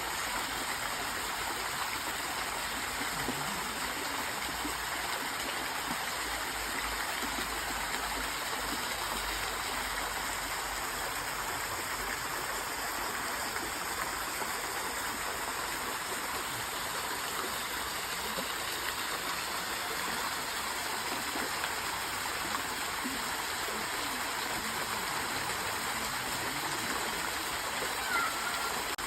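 Water of a stream flowing steadily, an even rushing and gurgling with no breaks. Near the end comes one short higher note over the water.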